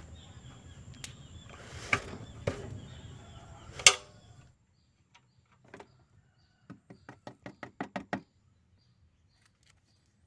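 Metallic knocks and clinks of a 17 mm ring spanner working loose the oil drain plug on a diesel pickup's sump, a few separate strikes with the sharpest about four seconds in. A quick run of small ticks follows around seven to eight seconds.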